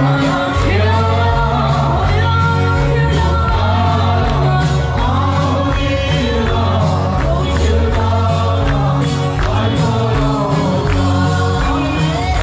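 A worship song sung with band accompaniment: voices over a steady beat of drums and bass.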